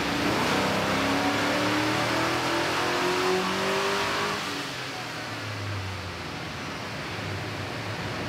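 Chevy 4.8 L V8 in a Silverado at wide-open throttle on a chassis dyno, revving up in a rising pull for about four seconds, then the throttle closes and the engine winds down more quietly. This pull runs 36 degrees of ignition advance, enough to set off knock.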